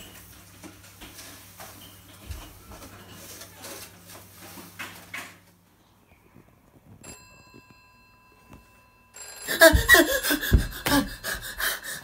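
A mobile phone ringtone: a faint hum at first, then, from about seven seconds in, thin electronic tones at several pitches. The tones turn loud over the last three seconds, with thumps, as the phone is grabbed.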